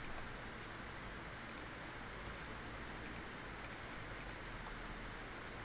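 A computer mouse clicking a few times at irregular intervals while points are selected and edited in CAD software. The clicks are faint over a steady background hiss and hum.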